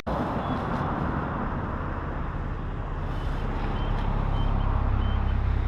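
Road traffic going by: steady tyre hiss that fades over the first few seconds, then the low rumble of a passing vehicle's engine building in the second half.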